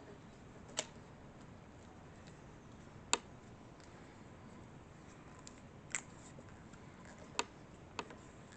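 Five sharp, separate clicks from hands and small tools working on a bicycle, spaced one to three seconds apart over faint room noise.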